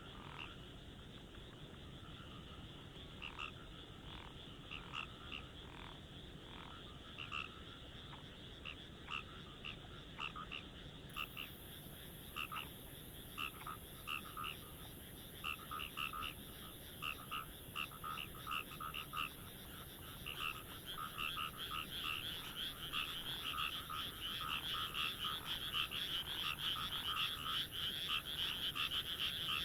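Frogs calling in short, repeated croaks. The calls are spaced out at first, then build into a dense, louder chorus over the last third. A steady high hiss comes in about a third of the way through.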